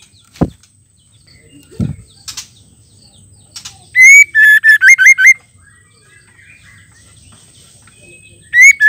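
A white-rumped shama sings loud, clear whistled phrases. About four seconds in there is a rising note followed by a quick run of looping, upswept whistles, and another phrase begins near the end. Two soft low sounds come early on.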